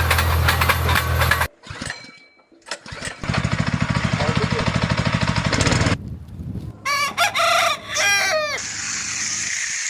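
A rooster crowing about seven seconds in. Before it come abrupt, cut-together stretches of a loud running motor with a low, pulsing hum, and after it a steady hiss.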